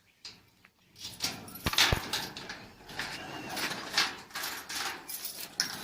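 Garage door being opened: a second of quiet, then rattling and scraping with many clicks and knocks, and a couple of heavy thumps about two seconds in.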